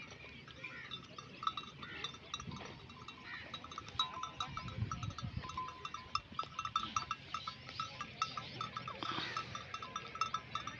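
Bells on grazing sheep clanking and jingling irregularly as the flock moves.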